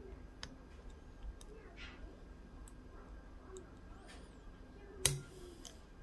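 Medium hook pick and tension wrench working the pin-tumbler cylinder of a Matlock 2538 padlock: faint metallic ticks as the pins are picked, with one louder click about five seconds in.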